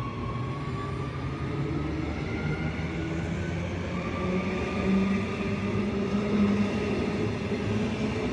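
Queensland Rail electric commuter train pulling along the platform, its traction motors whining in several tones that rise slowly in pitch as it gathers speed, over the steady rumble of the wheels on the rails. It gets a little louder in the second half.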